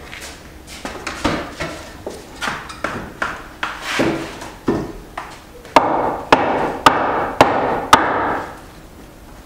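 Irregular knocks and bangs of wood and metal being handled. About six seconds in come five sharp hammer strikes, roughly two a second, over a rushing noise, then it goes quiet.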